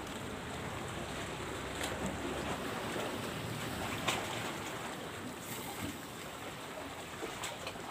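Steady wash of small sea waves against a rocky shore, with wind and a few light clicks, one about four seconds in.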